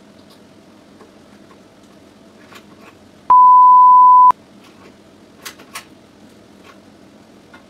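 A single loud, steady beep of one pure tone lasting about a second, starting and stopping abruptly, about three seconds in. A few faint clicks follow, over a steady low hum.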